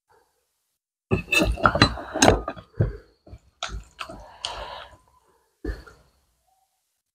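Fingers mixing wet rice and dal on a plate: irregular squelching and clicking against the plate, in three spells, the longest starting about a second in.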